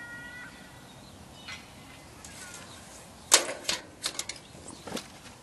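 A steady high tone that stops about half a second in, then several sharp clicks: the loudest just over three seconds in, followed by a quick cluster of smaller ones and one more near the end.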